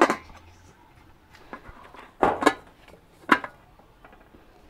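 Metal pot lid clanking against a cooking pot as it is handled and set in place: a clank at the start, a double clank about two seconds in, and one more a second later, each ringing briefly.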